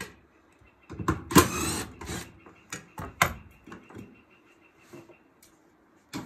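Cordless drill-driver spinning out a Torx screw for about a second, then a series of sharp clicks and knocks as the plastic door bezel is handled and worked loose.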